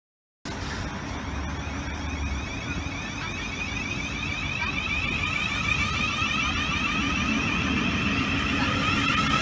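South Western Railway electric multiple-unit train moving along the platform. Its electric traction whine of several high tones sits over a low running rumble, and it grows steadily louder after cutting in abruptly about half a second in.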